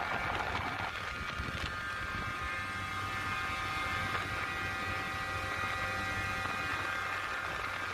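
York screw chiller with variable-speed drive running: a steady mechanical hum with several high, steady tones over it.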